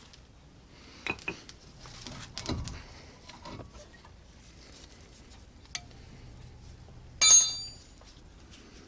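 Metal brake parts being handled: scattered light clicks and knocks, then one loud ringing metallic clink about seven seconds in. By the end the gloved hands hold the brake caliper and pads.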